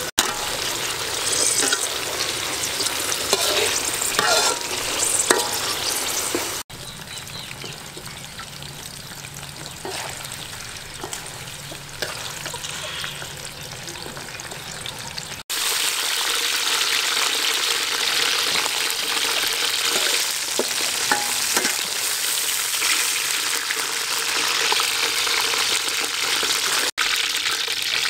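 Spiders, garlic and chillies deep-frying in hot oil in a metal wok, sizzling steadily, with a slotted ladle scraping and clinking in the pan as they are stirred. The sizzle drops quieter for several seconds in the middle, then comes back loud.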